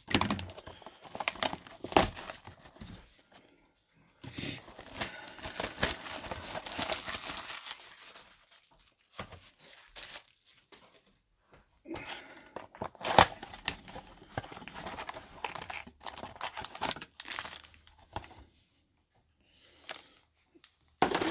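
Plastic shrink wrap being torn and crinkled off a cardboard trading-card box, then the box being opened and its foil card packs handled, in irregular bursts with short pauses.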